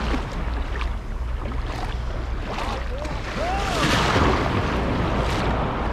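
Small waves washing on the beach with wind on the microphone, the wash swelling and easing. A bird gives a few short calls that rise and fall in pitch, about two and a half to three and a half seconds in.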